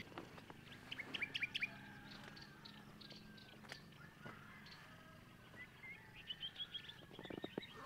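Birds calling: a quick run of short chirps about a second in, then a second run near the end.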